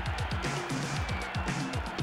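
Background music with a fast, steady drum beat of about four low thumps a second over a bass line.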